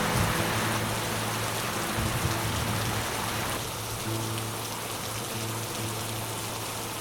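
Heavy rain falling steadily, a dense hiss of raindrops, under soft background music of long held notes. The rain noise eases somewhat about halfway through.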